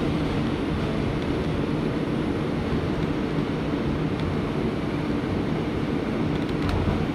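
Bombardier R142 subway car running slowly with a steady rumble and motor hum, heard from inside the car as it brakes into a station.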